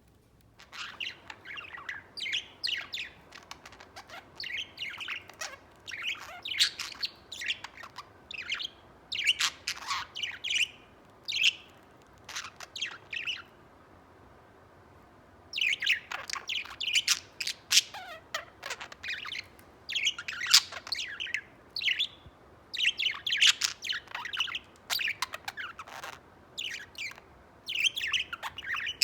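Budgerigar warbling: long runs of quick chirps and short chattering notes, broken by a pause of about two seconds midway.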